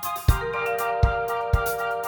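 Background music: sustained pitched instrument notes over a steady drum beat.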